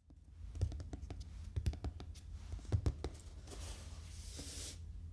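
Long fingernails tapping and scratching on the top of a cardboard shipping box: a run of quick taps, the loudest about half a second, a second and a half and nearly three seconds in, then a longer scratchy rubbing near the end.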